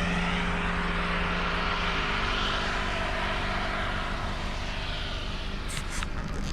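A steady engine-like drone over a rushing noise, slowly fading.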